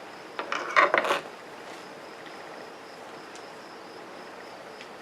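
A brief rustle of a cloth sock and yarn being handled and stuffed, about half a second in and lasting under a second, over a steady faint high-pitched background hum.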